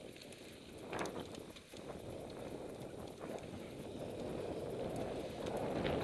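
Wind buffeting the bike-mounted camera's microphone, mixed with mountain bike tyres rolling over a sandy dirt track, with a few sharp clicks and rattles. The rushing noise grows steadily louder.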